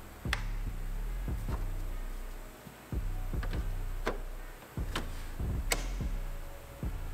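Background music: held bass notes that change in steps, with sharp percussive hits every half second to a second.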